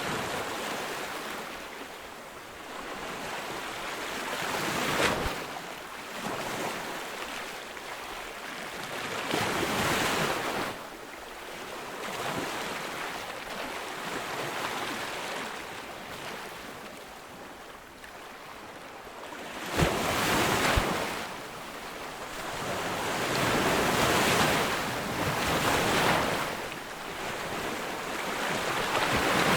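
Ocean waves breaking on a beach: the surf swells and ebbs every few seconds, with sharp crashes about five seconds in and again about twenty seconds in.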